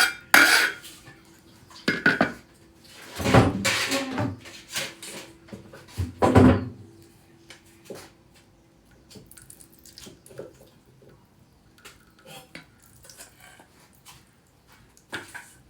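Cooking utensils knocking and clattering against pots and pans, with several loud knocks in the first seven seconds and lighter clatter after.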